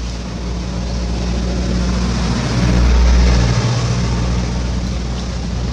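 A motor vehicle on the road, a steady low engine hum with tyre noise that grows to its loudest about three seconds in and then eases off.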